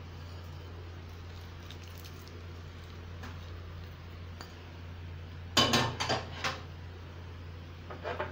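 A quick cluster of sharp clinks from kitchen dishes knocking together, about five and a half seconds in, and a shorter clink near the end, over a steady low hum.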